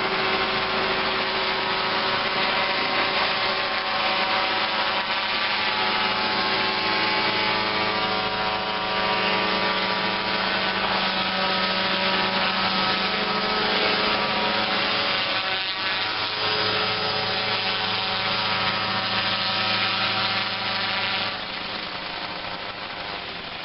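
Small remote-controlled crop-spraying helicopter running, a steady engine drone with its rotor noise. The sound drops to a lower level about 21 seconds in.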